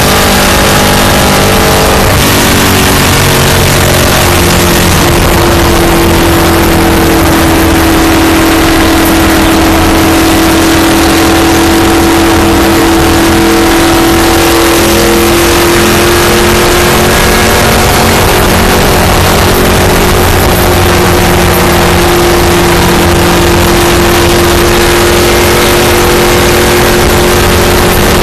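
Stock car's V8 engine running at speed, heard from inside the cockpit. It is a loud, steady drone that settles onto one held pitch about two seconds in, over heavy road and wind noise.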